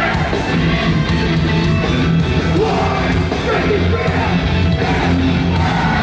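Metalcore band playing live, loud and unbroken, with heavy bass and vocals over the band, heard from within the audience.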